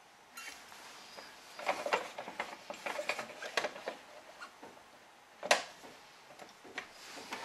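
Light clicks and rustling as badminton string and the fixed clamps of a stringing machine are handled, with one sharp click about five and a half seconds in.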